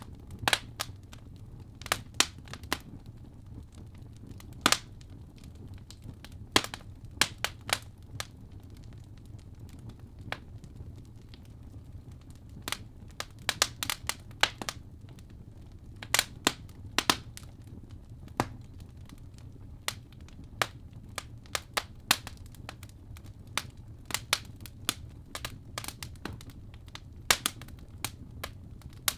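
Wood fire in a fireplace crackling, with irregular sharp pops and snaps over a low steady rush of burning.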